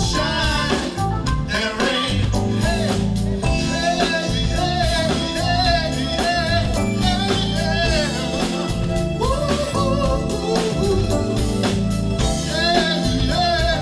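Live soul band playing, with a singer's voice over drums and bass.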